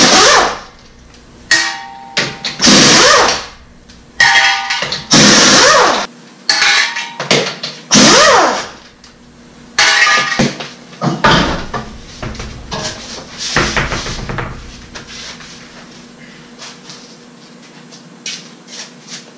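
Air impact wrench spinning off wheel lug nuts in a series of short, loud bursts, about eight in the first dozen seconds, its pitch rising and falling as it winds up and hammers. Quieter knocks follow near the end.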